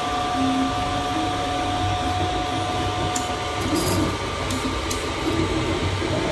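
Desktop FDM 3D printer running a print: its cooling fans whir steadily with a high whine, and its stepper motors hum in short shifting pitches as the print head moves. One of the whines drops out a little past halfway.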